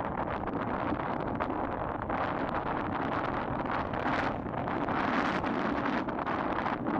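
Wind rushing and buffeting the microphone, a steady, unbroken noise.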